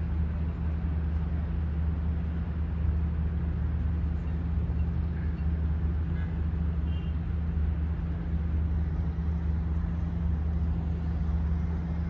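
Steady low mechanical drone and rumble, like distant engines, with no single event standing out.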